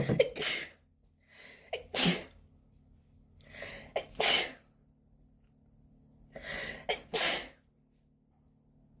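A person's sneezing fit from allergies: four loud sneezes, two to three seconds apart, each preceded by a noisy intake of breath.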